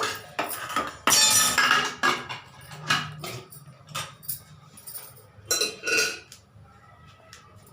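Kitchenware clinking and clattering against a frying pan as oil is put into it: a dense stretch of clatter about a second in, then scattered knocks and clinks.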